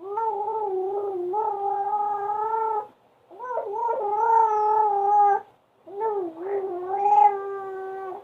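A baby making a weird droning vocal noise, held steady on one pitch three times for two to three seconds each with short breaks between; it sounds like a pumpboat engine.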